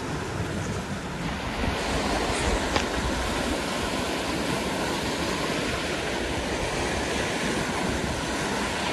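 Mountain river rapid: whitewater rushing steadily through a chute between boulders, with some low wind buffeting on the microphone.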